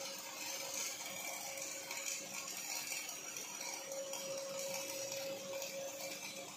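OTC welding robot arc-welding steel: a steady hiss from the welding arc, with a humming tone that fades in and out.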